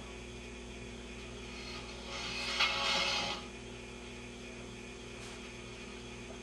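Steady low electrical hum from a vintage Admiral 16R11 tube television as it is powered up on the bench. About two and a half seconds in there is a brief rush of hiss with a sharp click.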